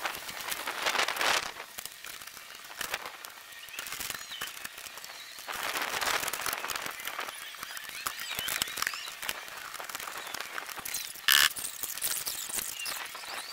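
Rustling, crackling and clicking of work sounds while vinyl siding panels are handled and fitted, sped up along with the footage, with one sharp knock about eleven seconds in.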